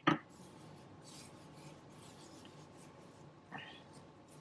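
A sharp thump, then hands rubbing a dry spice rub into a raw pork roast: soft, faint scraping and swishing of fingers and seasoning over the meat's surface.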